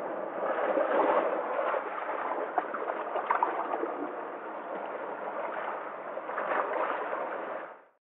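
Sea waves washing in among shoreline rocks: a steady rush of surf with many small splashes, swelling about a second in and again near the end, then fading out at the very end.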